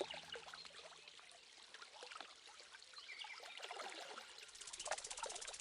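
Faint ambience of a stream trickling, with scattered small chirps over the water.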